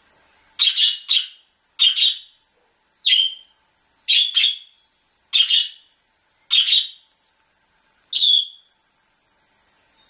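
Domestic canary giving begging calls for food: seven short, loud chirps in a regular series about a second apart, several of them doubled.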